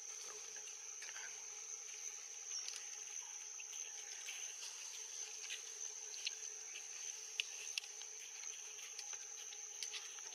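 Steady high-pitched drone of insects, with scattered faint clicks and ticks.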